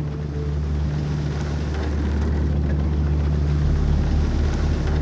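A small boat's motor idling steadily with a low, even hum.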